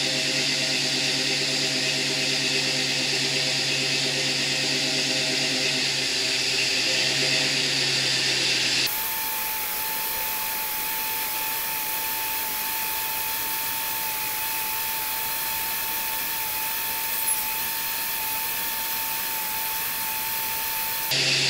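Classic Ford Bronco engine idling steadily; about nine seconds in, its electric radiator fan from a Jeep Liberty switches on as the coolant passes 180°F, a rushing whir of air with a steady motor whine. The fan cuts off abruptly about a second before the end, once the coolant has cooled, and the plain idle returns.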